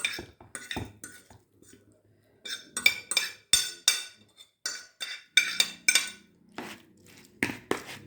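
A utensil clinking and scraping against a jar and bowl as a paste is spooned into the jar, in quick runs of sharp, lightly ringing clicks.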